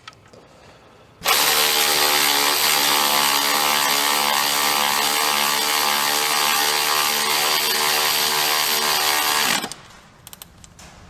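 A power tool runs steadily for about eight seconds with a buzzing mechanical tone. It starts suddenly about a second in and stops suddenly near the end.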